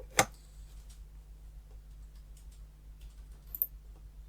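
A sharp click of a computer mouse just after the start, then a few fainter clicks, over a low steady hum.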